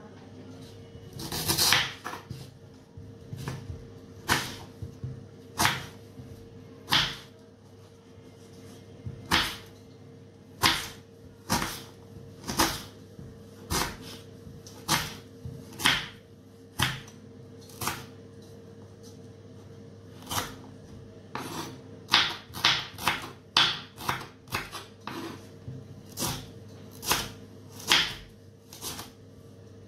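Kitchen knife chopping raw green mango on a wooden cutting board: sharp knocks of the blade on the board, roughly one a second, with a quicker run of chops about two-thirds of the way through. A steady hum runs underneath.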